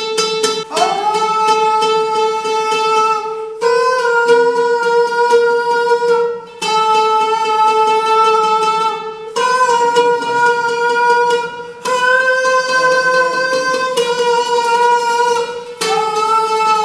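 A man sings long held vowel notes, each about three seconds, stepping back and forth between two close high pitches. An oud is plucked at the start of each note and rings under the voice, as in a vocal-range exercise.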